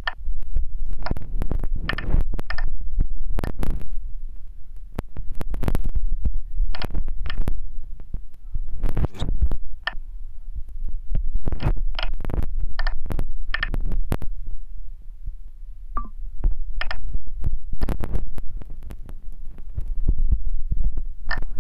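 Dull low thumps, irregular and a fraction of a second apart, over a steady low rumble: fingers tapping a phone's touchscreen keyboard, picked up through the phone's own microphone.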